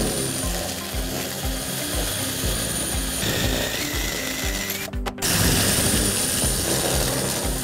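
Cordless DeWalt drill driving a Snapper Shear Pro shear attachment, cutting through 1/4-inch HardieBacker fiber cement board with a steady rhythmic mechanical clatter. It breaks off briefly about five seconds in.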